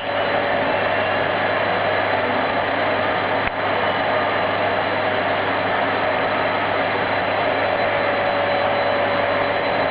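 Vacuum cleaner running steadily: an even rushing motor noise with a constant hum, dipping for an instant about three and a half seconds in.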